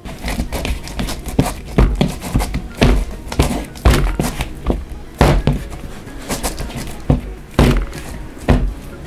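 Bread dough being kneaded by hand in a plastic mixing bowl: a string of irregular dull thumps, about one or two a second, as the dough is pressed and pushed against the bowl.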